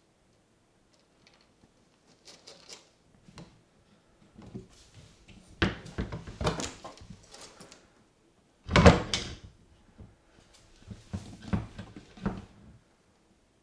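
An Argus monitor lizard feeding on a hamster in a bathtub: scuffling, claws scraping and knocks on the tub in several bursts, with the loudest thump about two-thirds of the way in.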